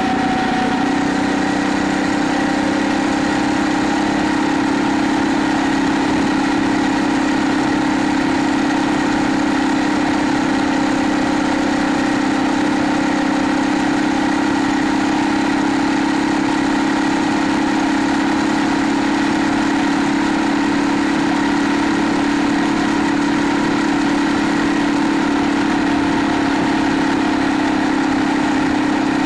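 A 2024 Phatmoto Rover motorized bicycle's small 79cc four-stroke gas engine running steadily at cruising speed, holding one even note throughout.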